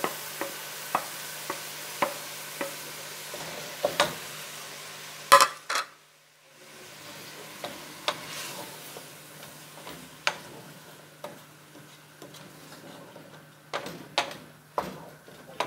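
A wooden spoon knocking and scraping against a pot and plate as diced tomatoes are stirred into onions frying in oil, with a soft sizzle underneath. The knocks come irregularly, the loudest about five seconds in.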